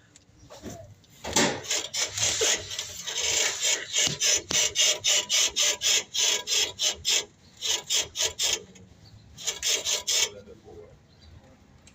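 Worn shock absorbers on a Toyota Hilux Raider squeaking over and over, about three rasping squeaks a second with a couple of short pauses. The squeak says the shocks are worn out and due for replacement.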